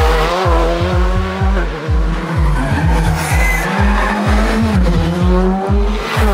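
A Škoda Fabia R5 rally car's engine revving hard, its pitch rising and falling through the gears, mixed with background music with a fast, steady beat.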